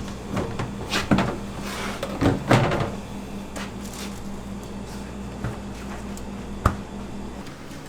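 Kitchen work sounds: a few knocks and clatters of things being handled and set down over a steady machine hum, which cuts off near the end.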